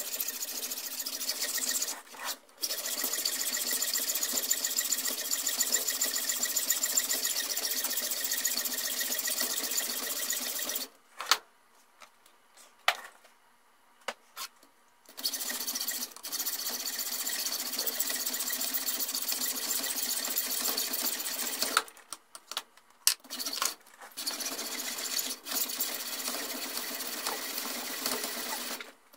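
Hacksaw cutting through the steel barrel of a Norinco Type 56 SKS in steady rasping strokes. The sawing stops twice for a few seconds, with a few sharp clicks and knocks in the pauses, then goes on.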